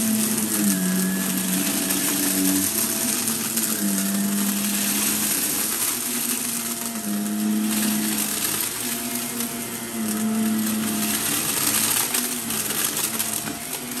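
Shark upright vacuum cleaner running on a shag rug, its motor hum shifting up and down in pitch every second or two as it is pushed back and forth, with a steady rush of air and faint ticking of confetti being sucked up.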